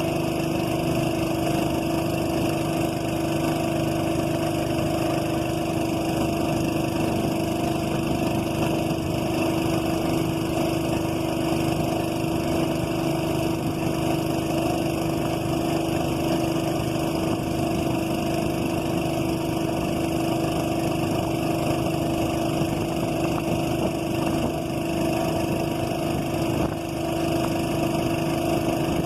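Boat engine running at a steady speed: a constant drone that holds one pitch without revving up or down.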